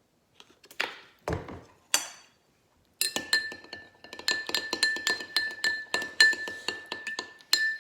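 A spoon stirring in a whiskey glass, clinking quickly against its side about five times a second while the glass rings on one steady note. A few separate knocks and a low thud come first, as the glass and ingredients are handled.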